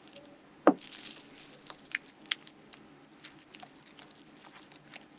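Kitchen food-preparation handling: one sharp knock, then irregular small crisp clicks and crackles.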